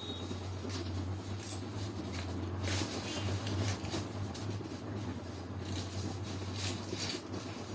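Felt-tip chisel marker rubbing on paper in several short strokes as a section is coloured in, over a steady low hum.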